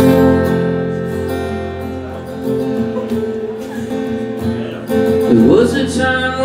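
Acoustic guitar strummed live, ringing out the opening chords of a song; a man's singing voice comes in near the end.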